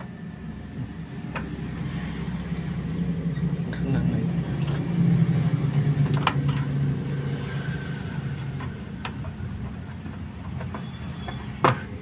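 Beverage cooler's refrigeration compressor running with a steady low hum that swells in the middle. A few sharp clicks come from the condenser-fan motor's wires and connector being handled, the loudest near the end.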